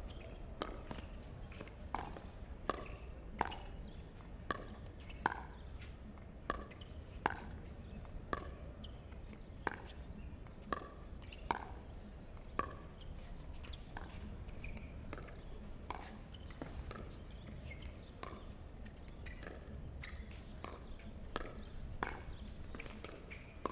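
Pickleball paddles striking a hard plastic pickleball back and forth in a long rally: a sharp pop with a short ring about once or twice a second, over a steady low hum.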